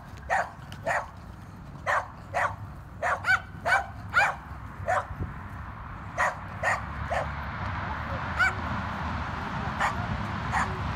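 Cockapoo puppy yapping: a string of short, high yips in quick, irregular runs, over a steady hiss that grows louder in the second half.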